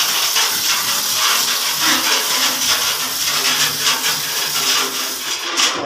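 A steady, loud hiss with faint low hums beneath it.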